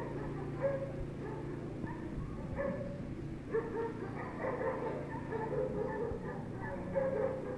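A dog whining and yipping in short, separate high calls that recur about once a second, over a low steady hum.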